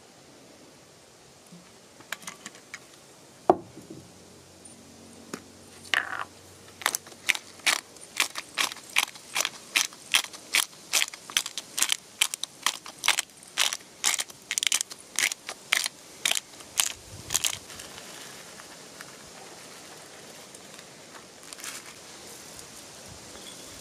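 A hand spice grinder being twisted over the meat: a steady run of short crunching grinds, about two and a half a second, lasting some ten seconds. A single sharp knock comes a few seconds before the grinding starts.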